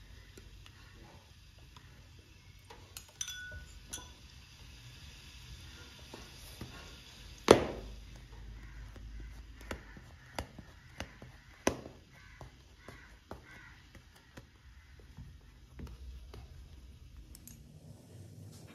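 Kitchen utensils tapping and clinking: a spoon in a glass bowl and a fork pricking a flat pizza base down onto a ceramic plate, in a string of light taps over a low steady hum. There is one much louder sharp knock about halfway through.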